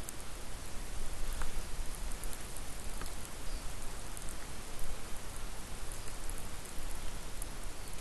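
Steady, even hiss like light rain, with a low rumble underneath and a few faint ticks.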